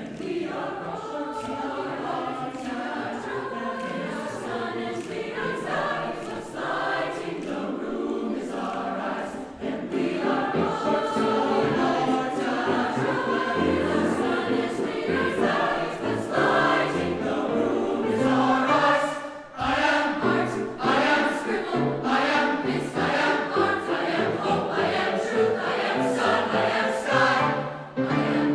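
Mixed youth choir of teenage voices singing in four parts (SATB). The singing grows louder about ten seconds in, with short breaks between phrases.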